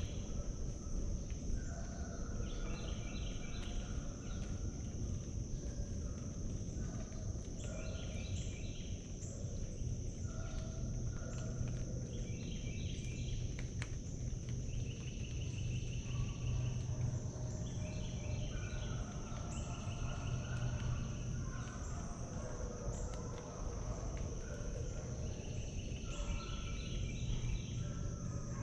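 Swamp ambience: a steady, high-pitched insect drone, with short chirping call phrases repeating every five or six seconds.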